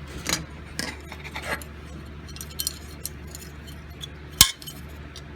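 Metal parts of a carousel gumball machine's coin mechanism clicking and clinking as they are handled and fitted together, with a sharper, louder click about four seconds in.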